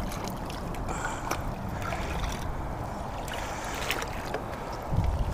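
Steady low rumble of wind on the microphone, with a few faint clicks and rustles; the rumble grows stronger near the end.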